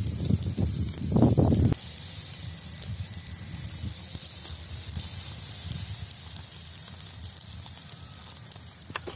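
Whole grass carp sizzling on a wire grill over hot charcoal, a steady hiss with fine crackles. Loud low rumbling noise for the first two seconds.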